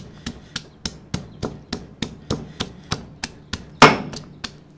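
Stone pestle pounding whole garlic cloves in a molcajete: a steady run of sharp knocks, about three or four a second. One much louder strike comes near the end, sending a clove flying, and then the pounding stops.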